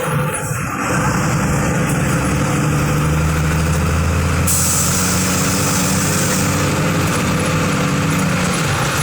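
Diesel engine of a Volkswagen 17.210 EOD bus running steadily, its note shifting slightly. From about halfway through, a steady high hiss joins in.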